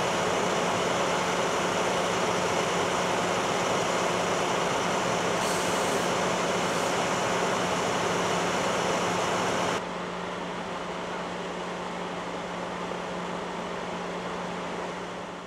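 Steady running of fire trucks' engines, an even rumble with a constant low hum. It drops somewhat about ten seconds in and fades out at the end.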